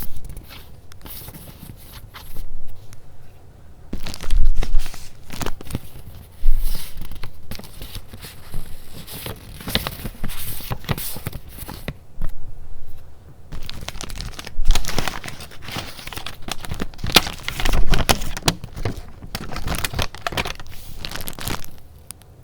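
Paper being handled: sheets and paper goods rustling and crinkling in irregular bursts, with a few sharper crackles.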